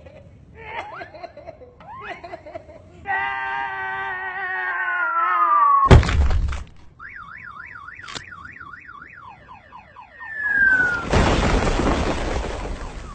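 Cartoon sound effects: short vocal sounds, then a long falling whistle of a dropping boulder that ends in a loud crash about six seconds in. A warbling alarm-like tone follows, then a shorter falling whistle and a long, loud crash of collapsing rock near the end.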